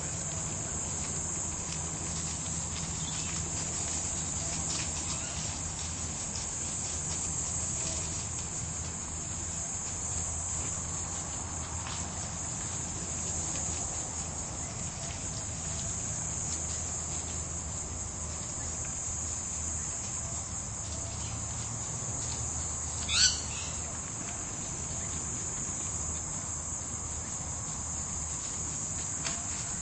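Steady high-pitched insect chorus over faint scratching and rustling of dogs digging in dry leaf litter, with one short, sharp call falling in pitch about three-quarters of the way through.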